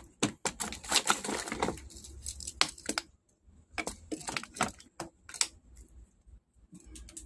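Irregular clicks, taps and light clatter of small tools being handled on a workbench, coming in quick clusters with short gaps.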